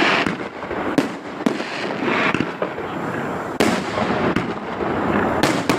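Fireworks going off in quick succession: a string of sharp bangs and booms over continuous crackling, with a loud bang at the start and another about three and a half seconds in.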